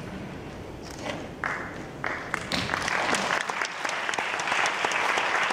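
Audience applauding: the clapping starts about a second and a half in and quickly swells into full, steady applause.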